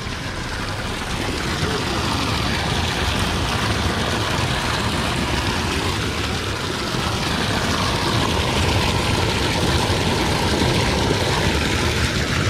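Water gushing out of a pipe outlet into a concrete basin and churning into foam, a steady rushing that grows a little louder over the first couple of seconds.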